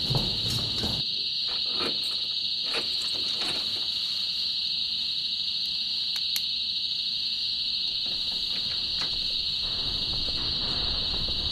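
A steady high-pitched drone with a few faint clicks and taps scattered through it.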